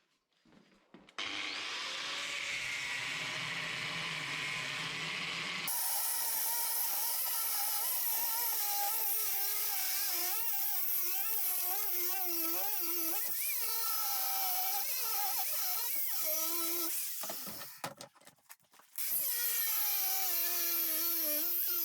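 Electric power tool working steel, its motor pitch wavering up and down as the load changes. It starts about a second in, stops briefly near the end and starts again.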